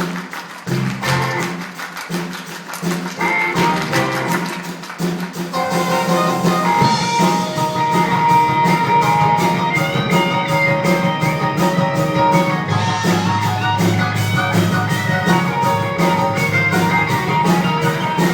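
Instrumental music led by a picked guitar, played live: sparser notes at first, filling out into a busy run of quick notes about five or six seconds in.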